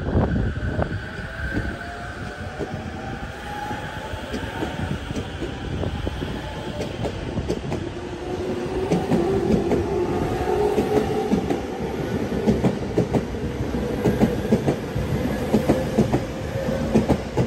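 E231-500 series electric commuter train accelerating away from the platform. Its VVVF inverter traction motors whine in rising tones over a low rumble. The wheels clatter over rail joints, getting louder and quicker through the second half as the train gathers speed.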